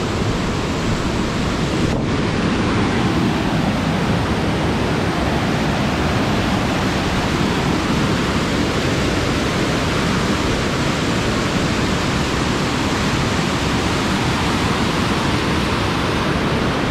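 Steady, loud rush of fast-flowing water from a small waterfall, with a single faint click about two seconds in.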